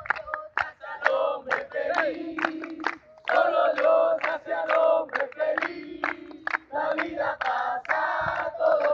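A group of voices chanting together in unison on held, sung notes, with many sharp clicks throughout.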